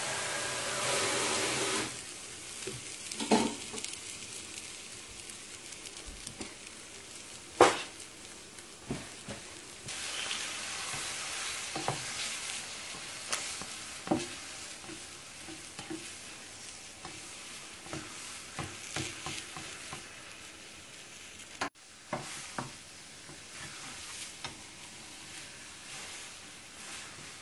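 Eggs with diced ham and peppers sizzling in a nonstick frying pan, loudest for the first two seconds and then softer, while a spatula scrapes, folds and scrambles them. Scattered sharp knocks of the spatula against the pan, the loudest about three and seven and a half seconds in.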